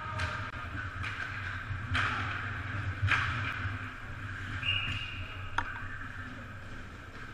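Ice hockey play heard at rink level: about five sharp cracks of sticks and puck at irregular intervals, over the steady hum of the arena. A referee's whistle sounds briefly a little before five seconds in, stopping play.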